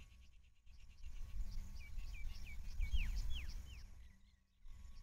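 Insects chirping in a steady, even pulse, with a bird calling a quick run of short falling whistles about two seconds in.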